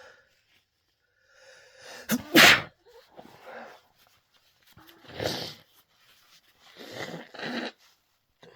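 A man with a cold sneezing: a building intake of breath, then one loud sneeze about two seconds in, followed by two softer blasts of breath a few seconds apart.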